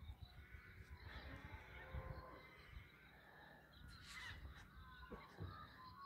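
Near silence with faint, distant bird calls.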